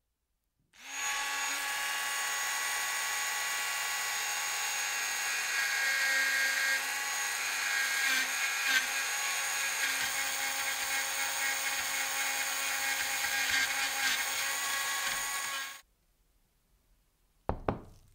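Cordless screwdriver running steadily, spinning a small bit inside the cloverleaf opening of a square steel die insert to clean it. It whines at several steady pitches, then stops abruptly, and a short double knock follows near the end.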